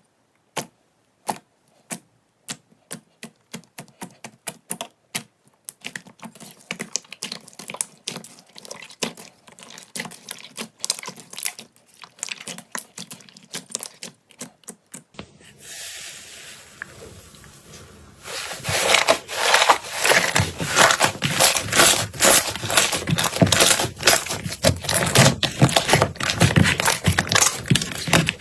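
Slime being worked by hand, giving sharp clicking pops that start sparse and grow denser, then, after a change about fifteen seconds in, dense, loud crackling.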